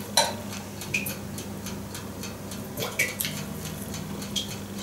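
Someone chewing a bite of muffin, with a few short, soft mouth clicks and smacks, over a steady low hum.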